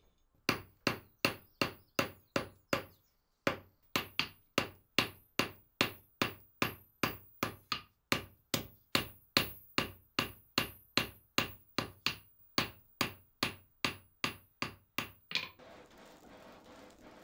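Blacksmith's hand hammer striking hot iron on an anvil in a steady rhythm, about two and a half blows a second, each with a short metallic ring, with a brief pause after the first few blows. Near the end the hammering stops and a steady rushing of the forge fire takes over.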